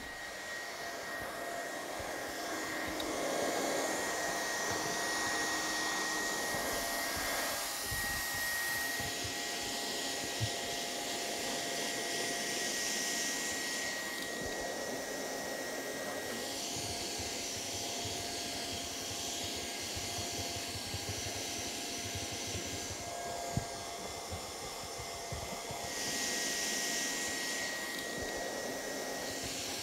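Handheld hot-air plastic welder's blower running steadily, a hiss of hot air with a faint motor whine, as it heat-welds a TPO flashing strip seam. The hiss rises and eases a little several times.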